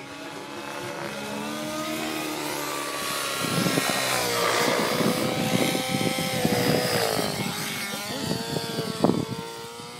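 Align T-Rex 700N nitro RC helicopter in flight, its glow engine whining at high revs with the main rotor chopping. It grows louder as it makes a low pass about halfway through, then fades as it moves away.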